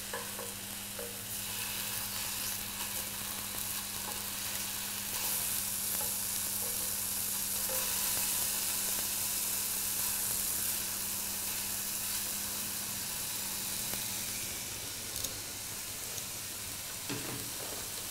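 Chicken pieces sizzling on a hot electric griddle, a steady frying hiss that grows louder in the middle, over a low steady hum. A few light utensil clicks near the end.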